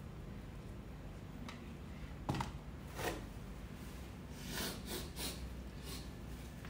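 A paper instant-noodle cup set down on a cork coaster with a light knock a little over two seconds in, then a paper tissue rubbed over the face and several short sniffs, a nose running from chili heat.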